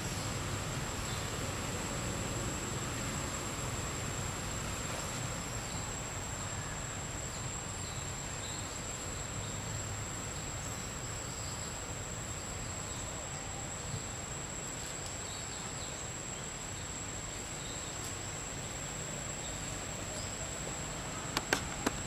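Forest ambience with an insect holding one steady high-pitched note over a low even background noise; two sharp clicks near the end.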